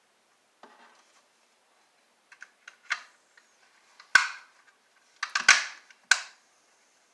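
A DVR remote control handled with sharp clicks and snaps: a few faint ones, then louder snaps from about four to six seconds in.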